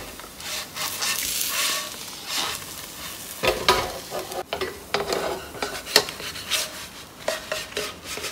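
A bánh xèo crepe sizzling in a nonstick wok, fried in the coconut oil released from its own coconut-milk batter with no added oil, with irregular scraping strokes as the wok is tilted and a wooden spatula works the crepe.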